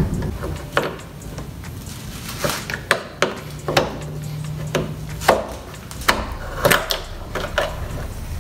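Plastic grille clips on a 2017 Dodge Journey being pried loose with a steel trim removal tool: about ten irregular sharp clicks and knocks of metal on hard plastic.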